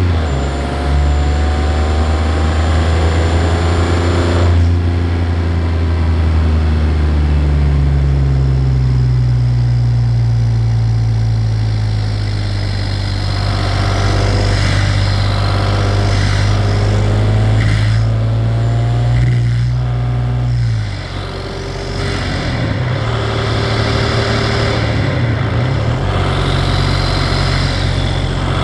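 Turbocharged Audi TDI diesel engine held on the brakes with throttle to build boost. The engine note climbs after about seven seconds, holds steady, and falls away just after twenty seconds, then wavers unevenly.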